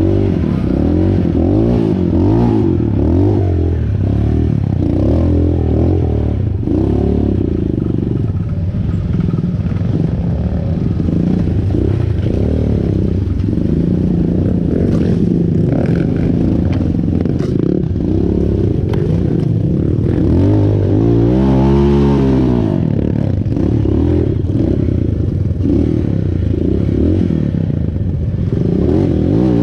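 Motorcycle engine running as it is ridden, its pitch rising and falling with the throttle, with one sharp rev up and back down a little past two-thirds of the way through. Clattering and scraping from the bike runs alongside the engine.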